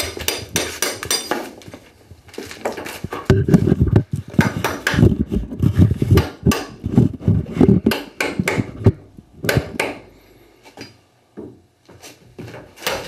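Hand tools knocking and scraping at a log wall, loosening old chinking and rotten log pieces: many irregular sharp clinks and knocks, in a dense run of heavier thumps through the middle, growing sparse near the end.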